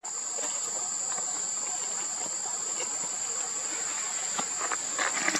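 Insects keeping up a steady, high-pitched drone, with a few light rustles and clicks, most of them about five seconds in.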